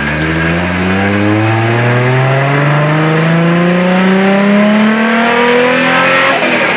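Nissan RB20DET turbocharged straight-six accelerating hard under load, its engine note climbing steadily in pitch for about six seconds. A faint turbo whistle rises over the last couple of seconds, and the note drops off near the end as the throttle is lifted. The driver judges the engine to be running far too rich.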